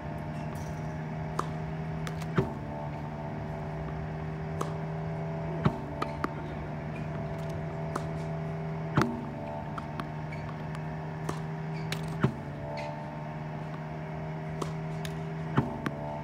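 Slinger Bag tennis ball machine running with a steady motor hum. About every three seconds it launches a ball with a sharp pop, and the hum dips for a moment as the ball goes through. Fainter knocks of balls bouncing and being hit fall in between.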